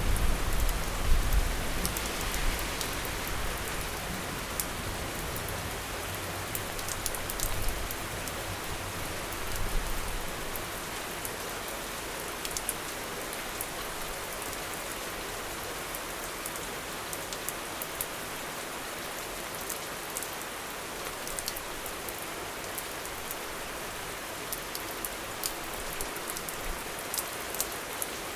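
Steady rain falling on hard surfaces, an even hiss with scattered sharp drop taps. A low rumble dies away over the first few seconds and swells briefly again about ten seconds in.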